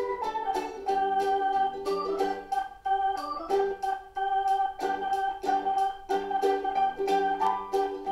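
Background music: an electronic organ-like keyboard playing a melody of held notes over a steady ticking beat.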